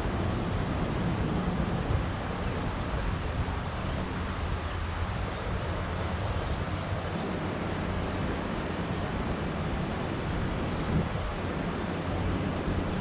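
Steady wind noise on the microphone over a continuous low rumble, with no distinct events.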